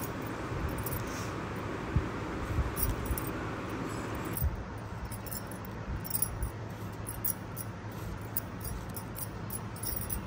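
Faint clinking of glass bangles and small ticks and taps as hands cut ripe tomatoes on an upright blade cutter and drop the pieces into a steel bowl, over a low steady hiss that drops about four seconds in.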